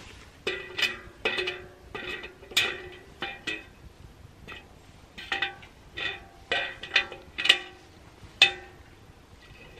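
Metal camp pot and its wire bail handle clinking and ringing as a stick hooks the handle and lifts the pot off a wood-burning camp stove: about sixteen sharp metallic clinks at uneven intervals, each with a short ring.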